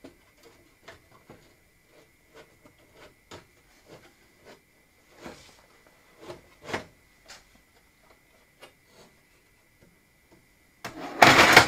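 Light clicks, taps and rubbing as a hard disk drive is handled and refitted into another bay of a Commodore PC 10-SD, then a loud clatter just before the end.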